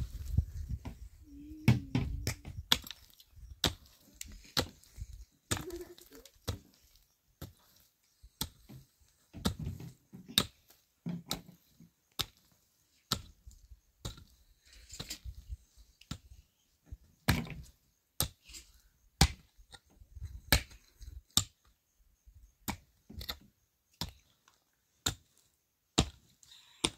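Irregular series of sharp knocks and taps, roughly one or two a second, with some duller thumps in the first few seconds.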